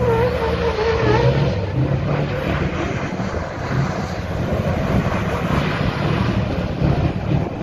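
Scania 144's V8 turbo diesel engine running hard at high revs as the tractor unit spins donuts, its rear tyres spinning on the asphalt.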